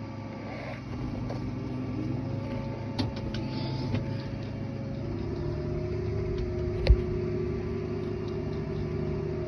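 Tractor engine running, heard from inside the cab while towing a grain cart; its pitch steps up about five seconds in as the tractor picks up speed. A few light clicks, and one sharp knock near the end.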